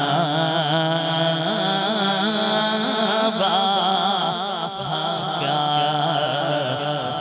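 A man singing an Urdu naat (devotional praise of the Prophet) into a microphone in one long, ornamented melodic line with wavering turns on held notes.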